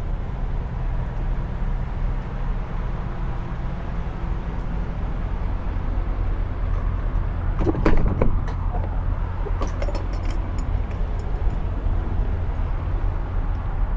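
Semi truck's diesel engine idling steadily, with a single knock about eight seconds in and a few light clicks soon after.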